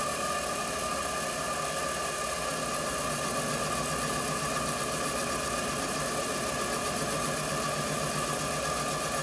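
King Canada 7x12 variable-speed mini metal lathe running, its motor and spindle drive giving a steady whine, while a cutting tool is hand-fed along a spinning aluminum workpiece to true up its outside diameter.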